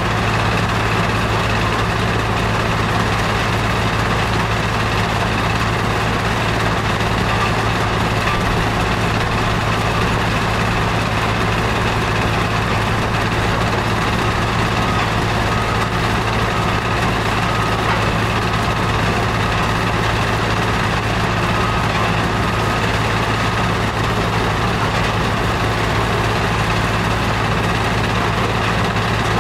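Heavy engine running steadily at constant speed, a continuous low hum that does not change.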